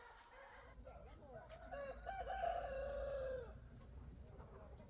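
A rooster crowing once, a drawn-out call of about two seconds that ends on a falling note, with fainter clucking from a flock of chickens.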